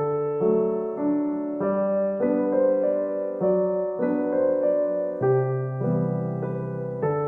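Gentle background piano music: slow chords and a melody, a new note or chord about every half second.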